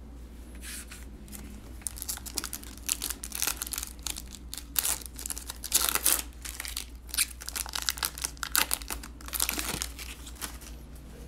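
Foil wrapper of an NBA Hoops basketball card pack being torn open and crinkled by hand, a dense run of irregular crackles starting about a second in, as the cards are pulled out of the wrapper.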